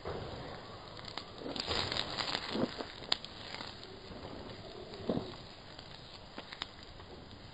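Campfire crackling, with scattered sharp pops and snaps, busiest about two to three seconds in.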